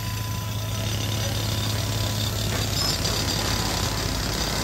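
Old tractor engine running at a steady idle.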